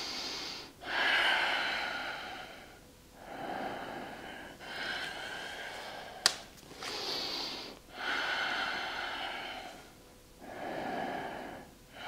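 Loud, deep breathing held through a yoga pose: slow in and out breaths, each one to two seconds long, with a single sharp click about halfway through.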